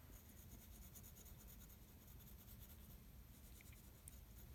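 Faint scratching of a drawing tool on paper: quick, repeated short strokes as a chimney is coloured in red.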